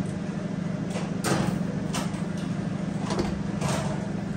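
A baking pan being put into an oven and the oven door shut: several short knocks and clunks over a steady low hum.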